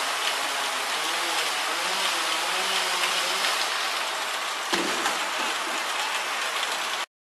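Steady hiss of rain, with a single sharp knock about five seconds in; the sound cuts off suddenly near the end.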